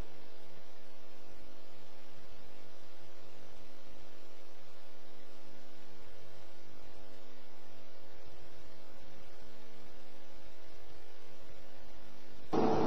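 Steady electrical mains hum: a constant buzzing tone with no other sound over it.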